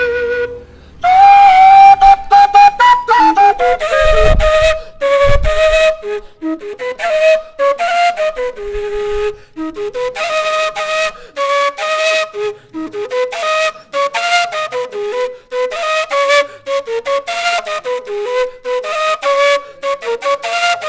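Colombian gaita (cane duct flute) playing a fast, ornamented folk melody, with a held note that slides down about a second in. Two low thuds sound about four and five seconds in.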